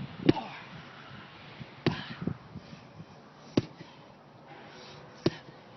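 Sledgehammer striking a block of recycled rubber four times, one heavy thud about every second and a half to two seconds, with a lighter knock after the second blow.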